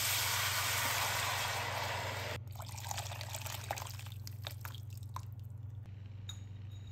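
Water running in a steady stream that cuts off abruptly about two and a half seconds in, followed by scattered light drips and small clicks.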